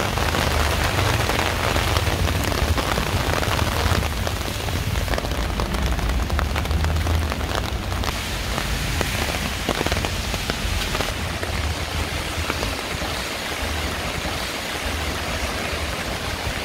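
Heavy rain pouring down steadily in a downpour, with many individual drops ticking sharply close by over a low rumble.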